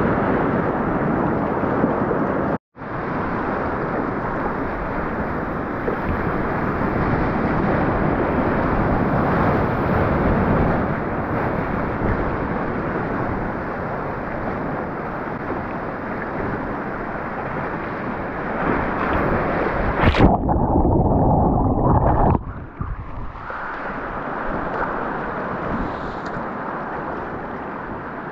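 Rushing whitewater of a river rapid churning around a kayak, a steady loud rush. It cuts to silence for a moment about three seconds in. About twenty seconds in there is a sudden splash and the rush turns muffled for about two seconds, then it carries on more quietly.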